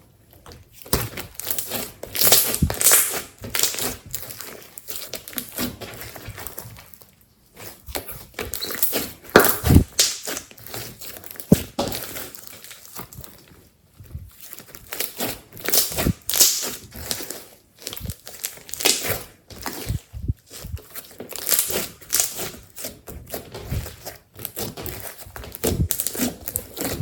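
Hands squeezing, folding and stretching glossy slime, with irregular crackling, popping and squishing bursts and a few short pauses.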